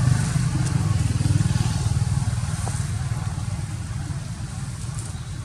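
A motor vehicle engine running with a low, even hum that fades gradually.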